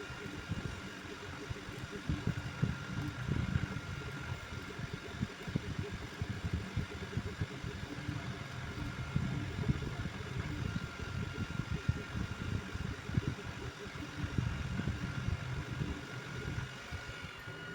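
Creality FDM 3D printer at work: its stepper motors buzz in quick, uneven runs as the print head moves, over a steady thin whine.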